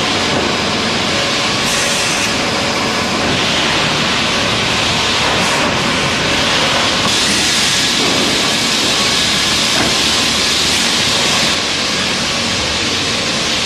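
CNC wood-processing machinery running, with a steady loud hiss as thick timber is machined.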